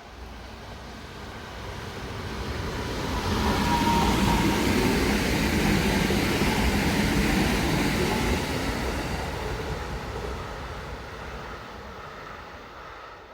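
Kintetsu Kyoto Line electric train passing by: its rumble builds over the first few seconds, stays loud for about four seconds, then fades as it moves away.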